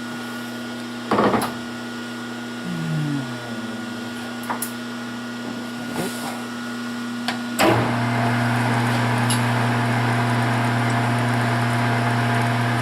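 Metal lathe humming steadily, with a few clicks and knocks and a short falling pitch about three seconds in. Just under eight seconds in, a knock is followed by the hum stepping up louder and holding steady as the lathe is started at sanding speed.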